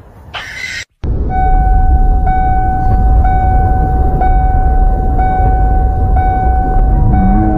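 A short harsh burst of noise, then after a brief dropout a loud steady vehicle rumble with a steady high tone over it that breaks off briefly about once a second.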